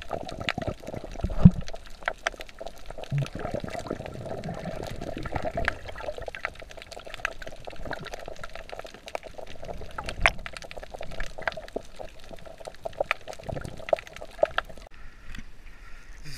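Water sloshing and bubbling around a camera carried by a snorkeler at and just under the surface, with many small sharp clicks and crackles throughout.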